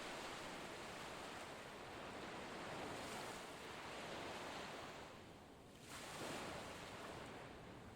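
Ocean surf: waves washing in as a steady rush that ebbs a little about five seconds in and swells again.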